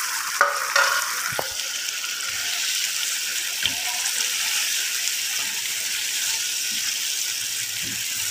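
Beef koftas and potatoes sizzling in hot oily masala in a frying pan, a steady hiss. A wooden spatula knocks lightly against the pan a few times in the first couple of seconds and once more midway.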